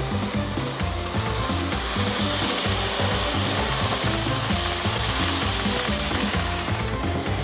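Background music over the rolling rattle and hiss of an N gauge model passenger train's coaches running past on the track. The rolling noise swells about two seconds in as the coaches pass close by.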